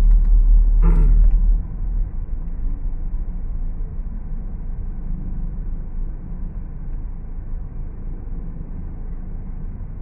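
Steady low rumble of a moving road vehicle, heavy at first and easing off about a second and a half in.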